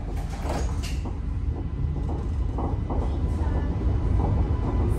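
Interior of an Alstom Citadis X05 light rail tram under way: a steady low rumble of wheels on rail and running gear, growing slightly louder, with a faint steady whine and a few light clicks and rattles.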